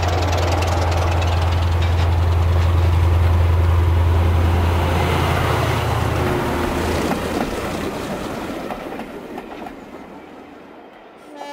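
Model railway diesel locomotive and coaches running past: a steady low rumble that fades away over the last few seconds, with a horn sounding just at the end.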